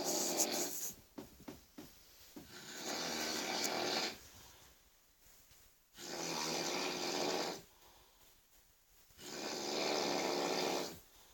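A person snoring very loudly: four long, harsh snores about three seconds apart, with a few short clicks or snorts after the first one.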